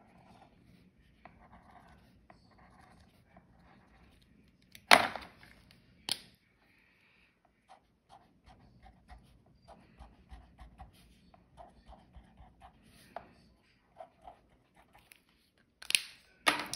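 Pencil and then a felt-tip highlighter scratching on a paper worksheet in short strokes. Two sharp knocks come about five and six seconds in, and two more near the end.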